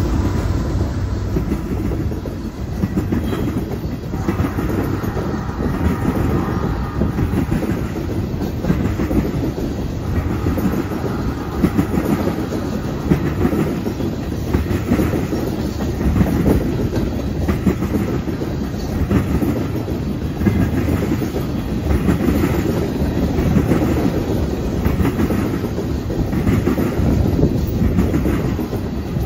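A freight train's cars, a covered hopper and a long string of tank cars, rolling past close by, their steel wheels clattering over the rails in a repeating rhythm.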